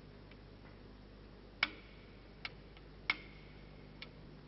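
Torque wrench clicking as the rocker arm bracket bolts are pulled up to their set torque of 330 Nm: two sharp metallic clicks with a brief ring, about a second and a half apart, with two fainter ticks, one between them and one near the end.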